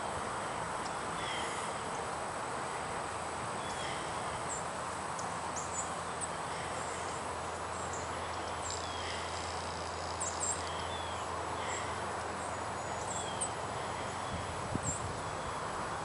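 Steady outdoor hiss with faint, scattered high chirps and squeaks of distant small birds throughout, and a faint low hum for a few seconds in the middle.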